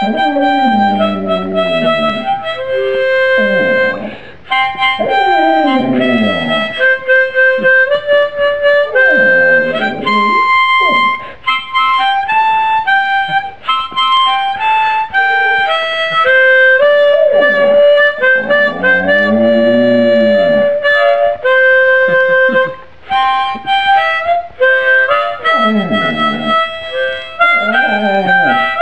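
A Samoyed howling along to music with held, steady notes. Its howls come in about five long bursts, each sliding up and down in pitch over the music.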